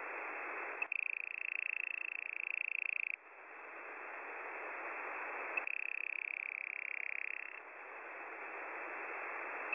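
Shortwave radio receiver audio in upper sideband: band hiss alternates with stretches of about two seconds of a rapidly pulsing, buzzy data signal. The signal comes on about a second in and again a little past halfway.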